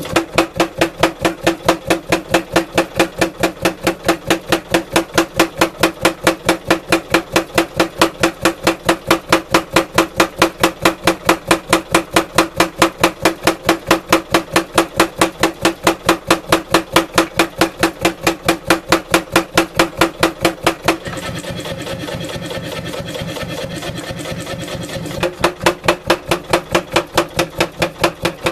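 Power hammer with a 16 kg head striking hot wootz steel in a fast, steady run of blows, several a second. About two-thirds of the way through, the blows stop for about four seconds, leaving a steady hum, then start again.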